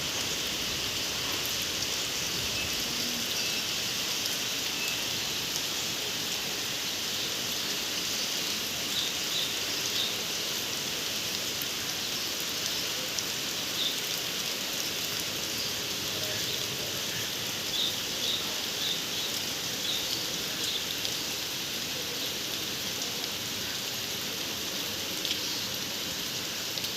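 Steady rainfall: an even hiss of rain, with a few brief, sharper ticks here and there.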